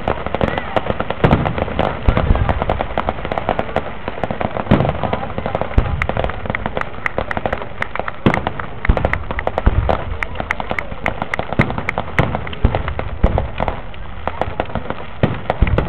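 Aerial fireworks display: a dense, continuous crackle of many small bursts, with deep shell booms landing every second or two.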